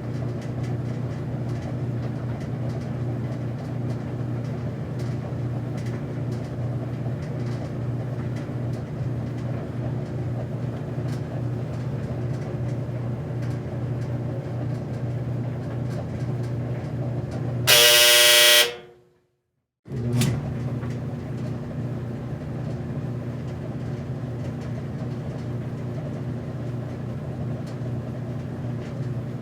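Laundromat washing machine/dryer running with a steady motor hum and revolving drum. About 18 seconds in, a loud buzzing tone sounds for about a second, then everything cuts out for about a second before the hum resumes.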